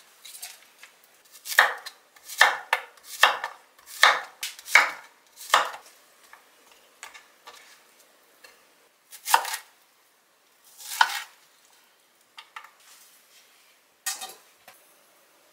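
Kitchen knife chopping vegetables against a wooden cutting board: a run of six evenly spaced cuts, then a few slower single cuts with longer gaps.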